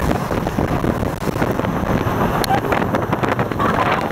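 Rigid inflatable boat running at speed on open water: wind buffeting the microphone over the rumble of the engine and rushing water.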